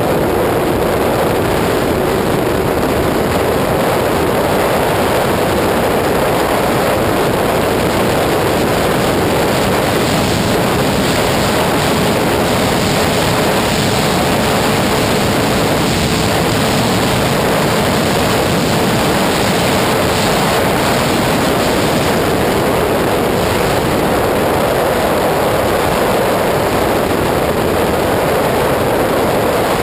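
Wind rushing over the camera microphone on a 2001 Suzuki GSX-R 600 sport bike cruising at highway speed, a loud steady roar. The bike's inline-four engine holds a steady, faint note underneath.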